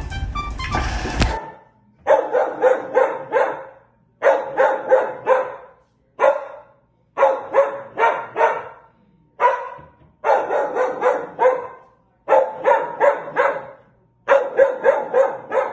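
Music cuts off about a second in; then a dog barks in rapid bursts of mostly four or five barks, a new burst about every two seconds.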